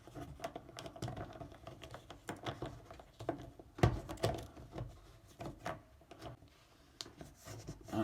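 A plastic sink-drain fitting being worked and hand-threaded onto a metal drain fitting: irregular small plastic clicks and scrapes, with one louder knock about four seconds in.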